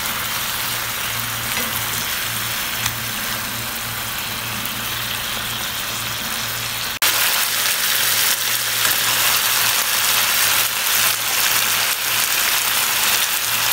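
Marinated chicken tikka pieces sizzling steadily as they shallow-fry in oil in a pan. The sizzle jumps louder after a sudden cut about seven seconds in.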